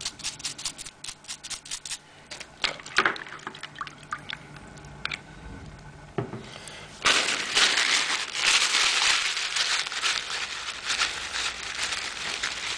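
Water dripping and trickling in a plastic tub, then from about seven seconds in, a louder, steady splashing as a wristwatch is swished and rinsed by hand in the water.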